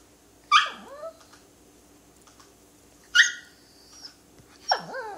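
Small long-haired dog giving three sharp, high-pitched yelping barks: about half a second in, about three seconds in, and near the end. The first and last slide down in pitch. It is barking for attention, as it does whenever the baby moves, wanting to be picked up.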